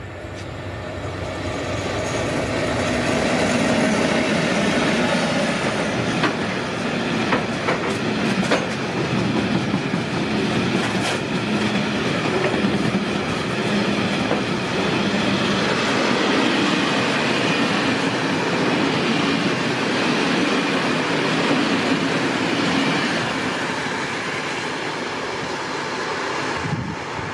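Freight train passing at speed: the sound grows over the first few seconds as the locomotive comes by. Then a long rake of bogie hopper wagons rumbles and clatters over the rails, with the clickety-clack of wheels and a few sharp wheel clicks.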